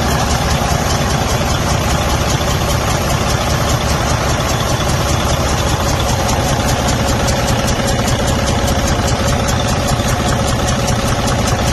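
Diesel engine idling with a fast, steady, rhythmic ticking clatter from the valvetrain: the sound of valve lash that has not been adjusted properly.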